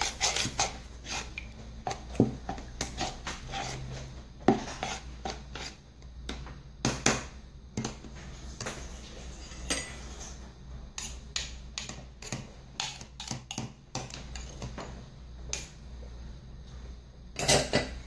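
Metal spoon stirring and scraping inside a cup, working thick zinc-oxide ointment into parsley juice, with irregular clinks and scrapes and a louder cluster of knocks near the end.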